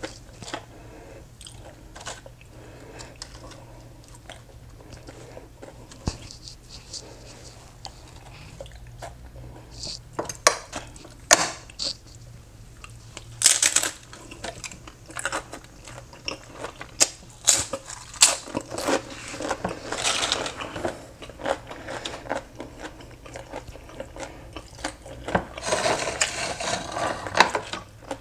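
Close-up eating sounds: irregular chewing and crunching, with a fork clicking and scraping on a ceramic plate. The crunching comes in denser, louder spells about halfway through and again near the end.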